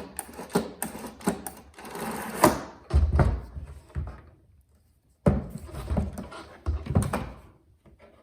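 Handling noise from a plastic jobsite coffee maker: a quick run of clicks and rattles, then several low thumps and knocks as it is moved and its parts are worked.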